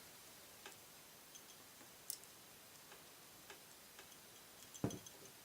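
Near silence broken by a few faint, irregular clicks of small metal parts being handled as a new front sight is worked into a Glock pistol slide, with a slightly louder click near the end.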